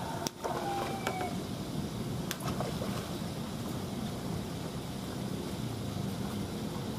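Pond aerators churning and splashing the water, a steady low rush.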